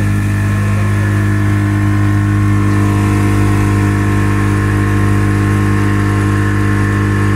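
A boat engine running at a steady speed: an even, unchanging drone.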